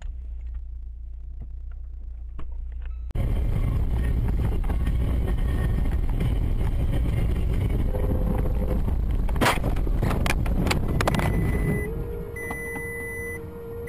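Low engine rumble, then, after a sudden cut, loud road and engine noise inside a moving car. About nine and a half seconds in comes a quick series of sharp bangs, a collision. After it there is a steady hum and a repeating electronic beep.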